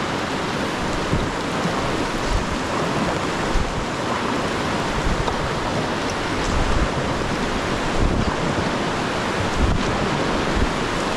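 River water rushing, a steady loud hiss, with wind buffeting the microphone in irregular low rumbles.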